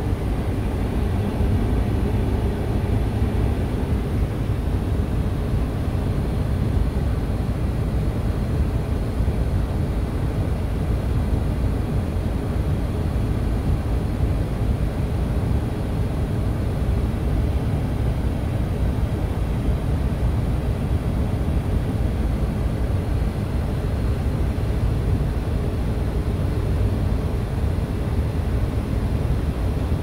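Vehicle engine idling, a steady low rumble heard inside the cab.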